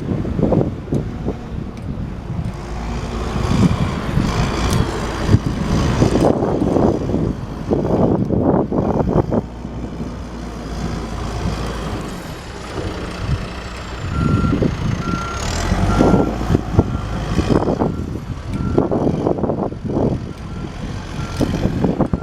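2011 John Deere 310SJ backhoe loader's diesel engine running, its sound swelling and falling as the machine works. About two-thirds of the way in, its backup alarm starts a steady series of evenly spaced beeps, the sign that the machine is reversing.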